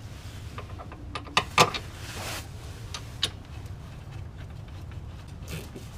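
Metal tools and parts clinking and knocking while a rear wheel hub bearing assembly is fitted: a quick cluster of sharp knocks about a second and a half in and another single clink about three seconds in, over a low steady hum.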